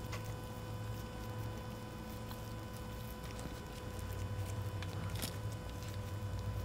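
Hands pressing and patting raw ground breakfast sausage around a stuffed jalapeño: faint soft squishes and small pats, with a small cluster about five seconds in. A steady low hum runs underneath.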